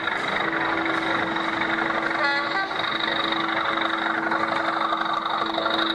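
O gauge model diesel locomotive running with a steady engine drone and a short horn toot about two seconds in, over the hubbub of an exhibition hall.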